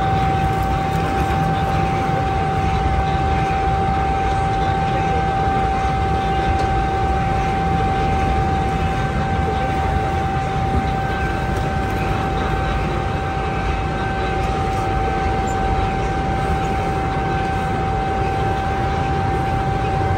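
Turbo TBT1500 electric garlic clove separating machine running steadily as garlic bulbs are fed between its rubber rollers: a constant mid-pitched whine over a dense rumble.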